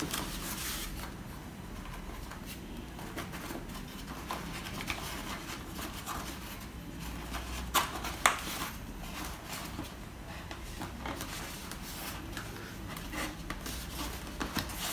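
Hands handling and fitting a foam model-plane wing onto its fuselage: rubbing and scraping with scattered small plastic clicks, two sharper clicks about eight seconds in, over a low steady hum.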